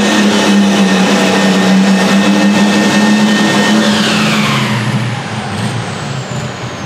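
Turbocharged Farmall super stock pulling tractor engine running flat out under load. About four seconds in the throttle comes off: the turbo whine winds down in pitch and the engine drops to lower revs, the end of the pull.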